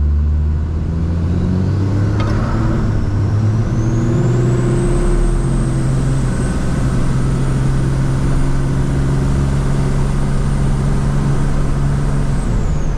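12-valve Cummins diesel with compound turbochargers pulling hard at full throttle from a launch, heard from inside the truck's cab. A turbo whistle rises over the first few seconds, holds high and steady, and falls away near the end.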